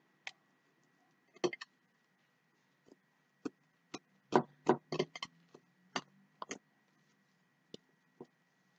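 Homemade fluffy slime being kneaded and folded by hand, giving sharp clicks and pops: a few scattered at first, then a quick run of them about four to six and a half seconds in.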